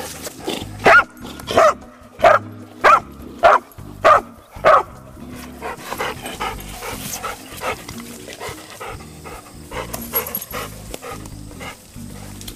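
A dog barking at play: about seven loud barks, one every half second or so, through the first five seconds, then quieter, with light background music throughout.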